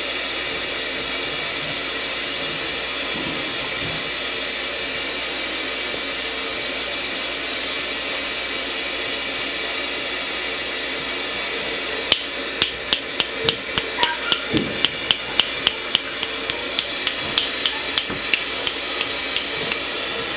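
A steady hiss throughout. From a little past halfway, a quick run of sharp clicks, about three a second, until near the end.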